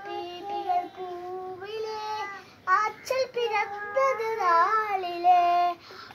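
A young boy singing solo without accompaniment, a Malayalam Nabidina (Mappila) devotional song, holding long notes with melodic turns in the middle and pausing briefly for breath twice.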